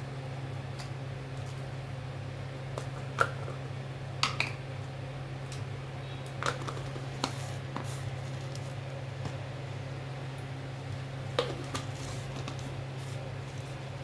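A cooking utensil knocking and clinking against a pot of tomato soup a handful of times, scattered and irregular, the sharpest knock about three seconds in, over a steady low hum.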